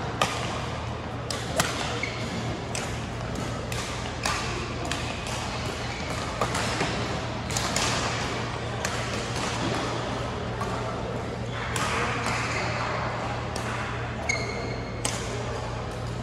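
Badminton rally in a large, echoing sports hall: rackets strike the shuttlecock in sharp cracks about once a second, with brief shoe squeaks on the court floor over a background murmur of voices and a steady hum.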